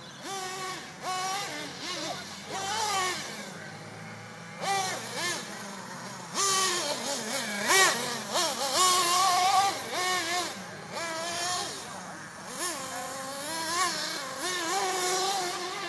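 Nitro RC car's small glow engine revving up and dropping back again and again as it is driven, loudest about eight seconds in.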